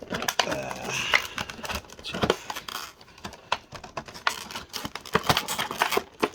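Packaging and a charger being handled: a run of crinkles, rustles and clicks.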